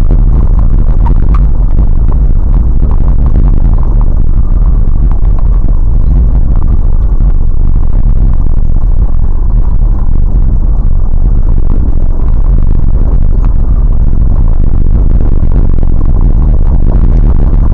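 Vehicle cabin rumble recorded by a dashcam while driving over a rough snow-covered track: a loud, steady low rumble with many small knocks and rattles running through it.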